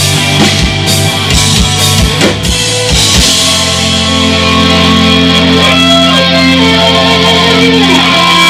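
Live rock band of electric guitars, bass and drums playing loudly. The drums hit steadily for about three seconds, then stop, leaving the guitars and bass holding a ringing chord while a higher guitar line slides between notes.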